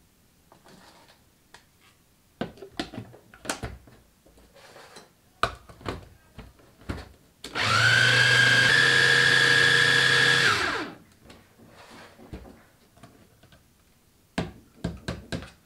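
Mitochiba CH-100 electric chopper running for about three seconds, its motor spinning the blades through a whipped-cream ice-cream batter to mix in condensed milk, rising slightly in pitch partway and then winding down. Before and after it, clicks and knocks of the motor head being fitted onto and lifted off the plastic jar.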